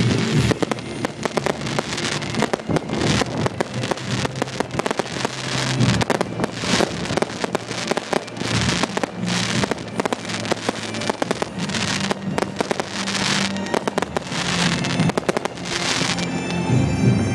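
Fireworks crackling and popping in rapid, dense succession, over music. Near the end the crackling thins out and the music comes forward.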